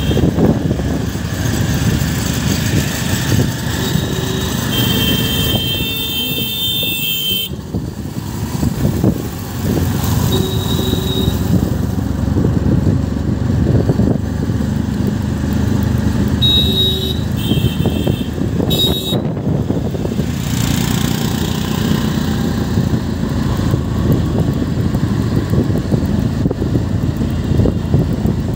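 Engine and road noise from riding in a vehicle through city traffic, with vehicle horns honking over it: one long honk about five seconds in, then short toots around eleven seconds and several more between seventeen and twenty seconds.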